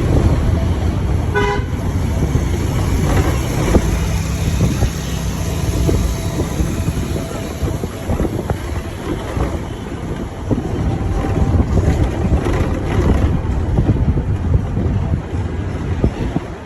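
A vehicle horn toots briefly about a second in, over the steady rumble of a vehicle driving in traffic.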